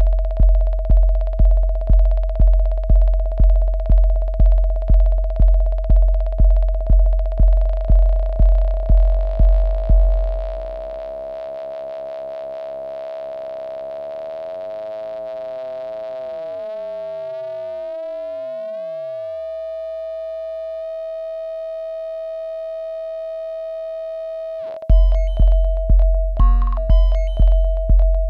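Eurorack modular synthesizer playing a low thumping pulse about twice a second under a steady held tone. About ten seconds in the pulse drops out and the tone's overtones slide apart, some gliding up and some down, and settle into a held chord. Near the end the pulse comes back suddenly with short blips.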